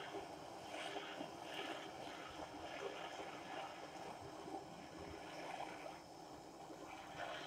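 Steady rushing hiss of a gas torch flame heating a 50cc moped exhaust to burn out the carbon deposits.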